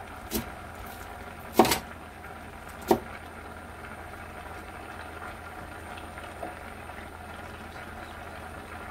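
Kimchi jjigae with tofu boiling in a stainless steel pot, a steady bubbling simmer. A few sharp pops come in the first three seconds, the loudest about a second and a half in.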